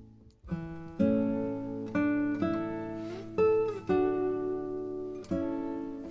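Background music: an acoustic guitar picking chords and single notes, about one or two a second, with a couple of notes sliding in pitch.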